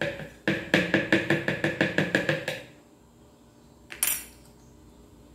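A metal spoon clinking quickly and repeatedly against a plastic blender jug, about a dozen strikes in two seconds, as cream is knocked off the spoon into the jug. A single knock follows about four seconds in.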